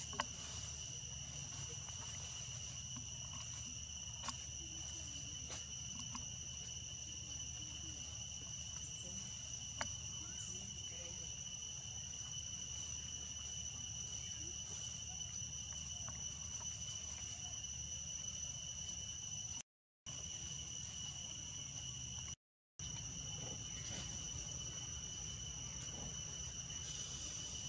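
Steady, high-pitched insect drone held on two even tones, over a low background rumble with a few faint clicks. The sound cuts out completely twice, briefly, about two-thirds of the way in.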